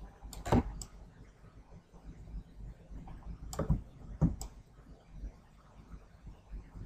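Computer mouse clicking: a few sharp clicks about half a second in, then a quicker cluster of clicks between three and a half and four and a half seconds in.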